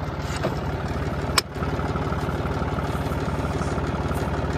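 Tractor engine idling steadily with an even, rapid pulse. A single sharp click or knock about a second and a half in.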